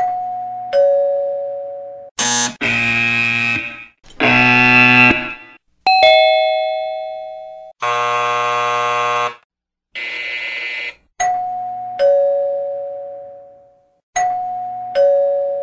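A run of doorbell sounds: two-tone ding-dong chimes, a higher note then a lower one, each ringing out and fading. Between them come several electric doorbell buzzes that hold steady for about a second and then cut off.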